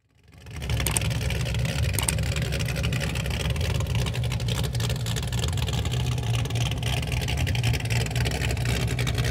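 An engine running steadily at a constant speed, low and fast-pulsing, fading in over the first second.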